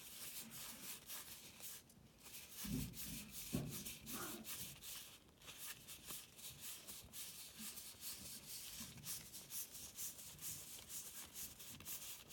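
Trading cards sliding and rubbing against one another as a stack is thumbed through one card at a time: a quiet run of short, soft scrapes, with a couple of low soft bumps about three seconds in.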